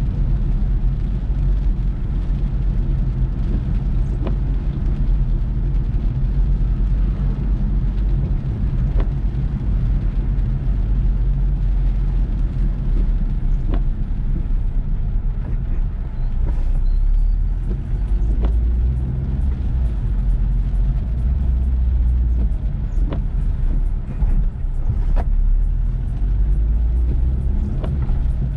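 Car driving in heavy rain: a steady low rumble of engine and tyres on the wet road, with faint sharp ticks every few seconds.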